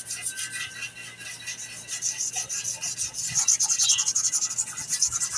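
Fine 1,000-grit sandpaper rubbed in quick, regular strokes over a knife's mahogany handle, smoothing the joint between wood and metal; the scratching grows louder about three seconds in.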